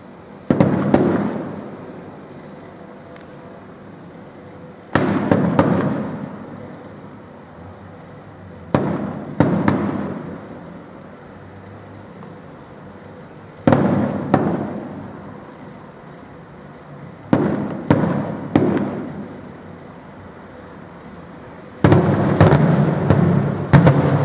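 Aerial firework shells bursting, single bangs or short runs of two or three every few seconds, each dying away over a second or two, with a quick string of bangs near the end.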